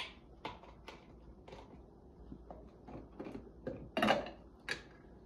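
Plastic cap of a cardboard milk carton being twisted open, a string of small clicks and crinkles, followed about four seconds in by a louder plastic clatter and another knock shortly after as parts of the Philips LatteGo coffee machine's milk system are handled.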